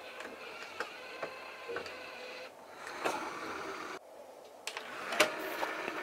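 Sony CDP-CX450 400-disc CD changer's loading mechanism running: small motors whirring, with repeated clicks, as a disc is moved out of the carousel. The sound breaks off abruptly about four seconds in, then resumes with more clicks, the sharpest one near the end.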